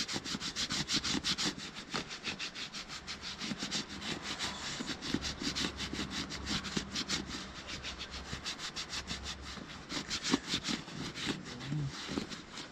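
A bare hand rubbing shoe cream into the sleeve of a leather jacket: quick, repeated back-and-forth strokes of skin on leather, several a second, with a brief pause near the end.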